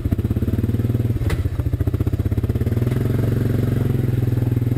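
ATV engine running close by at low speed: it picks up under light throttle at the start and drops back toward idle near the end. A single sharp knock comes about a second in.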